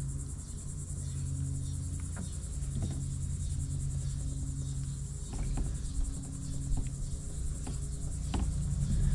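Steady, high-pitched insect chirring with fine rapid pulsing, over a low steady hum, with a few faint clicks and taps scattered through.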